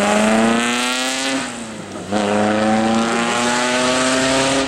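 Vintage racing car's engine accelerating, its pitch rising, then an upshift about a second and a half in with a brief drop in level, after which it pulls again at a lower pitch in the next gear.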